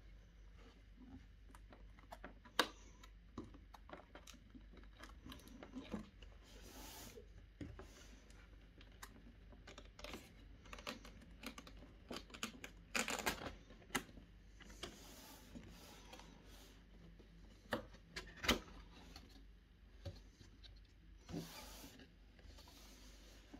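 Hands handling and opening a CPU cooler's cardboard retail box: scattered taps and clicks of fingers on the cardboard, with short scraping and sliding sounds as the lid flap is pulled open and the inner pieces are moved.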